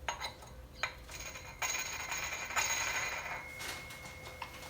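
Small metal parts clinking and scraping as they are handled: a few sharp clicks, then a couple of seconds of rattling and scraping metal.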